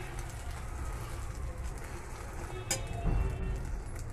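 A paratha sizzling in oil in a metal wok, with a metal spatula clicking once against the pan about two and a half seconds in.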